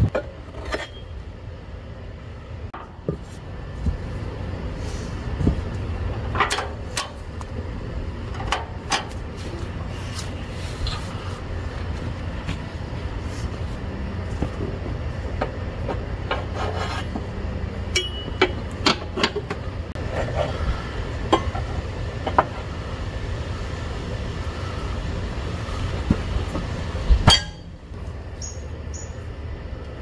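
Steel tire irons knocking, clanking and scraping against an Allis-Chalmers tractor's steel wheel rim as the tire bead is levered onto it by hand: scattered metal knocks, with a louder strike just before a low background rumble cuts off suddenly near the end.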